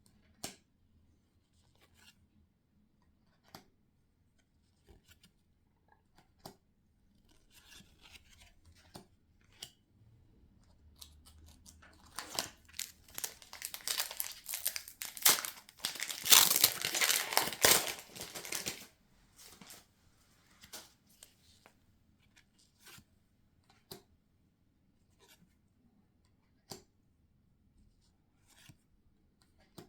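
Foil wrapper of a Pokémon booster pack being torn open and crinkled, loud for several seconds around the middle, with light clicks and taps of handling before and after.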